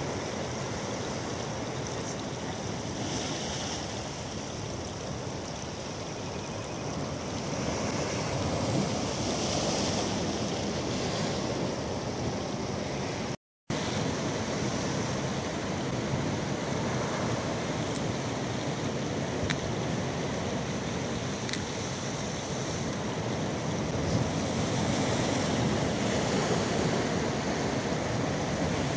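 Sea surf washing steadily against a rocky shoreline, a continuous wash of waves, cutting out for a moment about halfway through.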